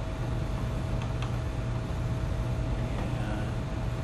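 Steady low electrical or fan hum with room noise, a faint high tone held throughout, and a faint click about a second in.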